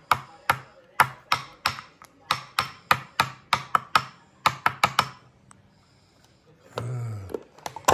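Quick, sharp kitchen taps of a utensil, about three a second for some five seconds, then a short spoken word near the end.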